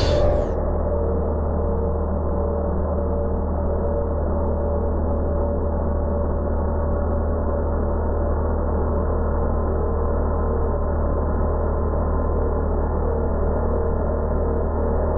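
Muffled, slowed-down milling sound: a steady low drone with a ringing tone that pulses on and off about once a second. It is the cut of a T-slot cutter in aluminium, stretched out for slow motion, with all its high hiss cut away.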